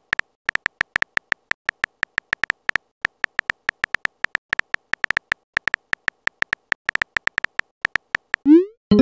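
Texting-app keyboard sound effect: short, sharp beep-clicks, one per typed letter, at about five a second. Near the end comes a quick rising swoosh as the message is sent.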